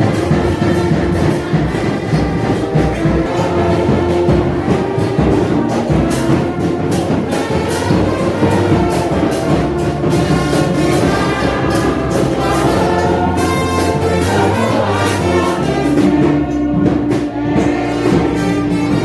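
Brass band music: horns hold sustained notes over busy percussion, with one long held note near the end.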